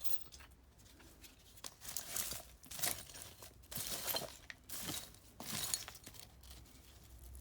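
Digging and scraping through gritty soil and rubble, with a run of short, noisy scrapes about one a second.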